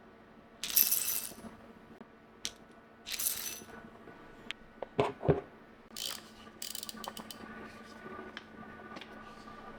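Hand coffee grinder being handled and set up: a series of separate clicks, knocks and brief rattles, with sharp knocks about five seconds in.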